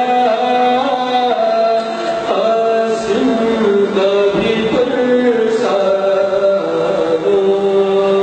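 A man's voice chanting an Urdu salaam, a devotional elegy, in long held melodic notes that slide from one pitch to the next.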